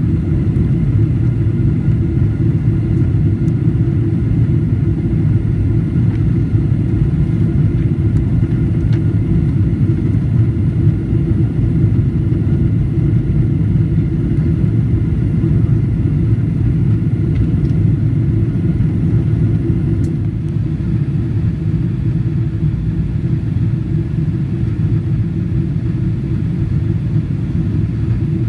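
Steady low cabin noise of a Boeing 777-300ER in the climb, heard from a window seat behind the wing: its GE90 engines and the airflow, with a few faint steady whines above. It eases slightly about two-thirds through.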